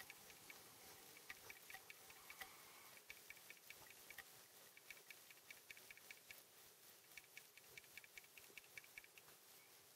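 Near silence, with faint irregular ticking several times a second over a low hiss.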